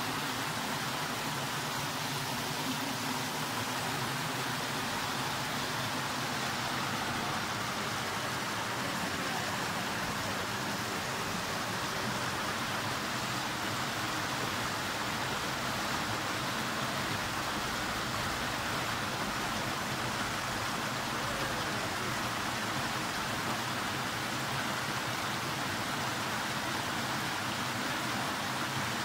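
Small stream rushing steadily over stones and low cascades.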